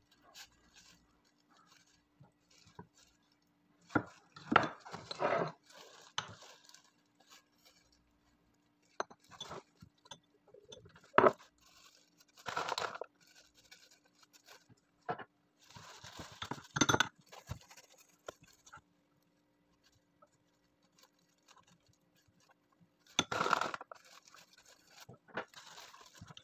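Intermittent rustling and crinkling of disposable plastic food gloves as hands handle soft bread rolls, with a few sharp clinks of a plate or bowl. A faint steady low hum runs underneath.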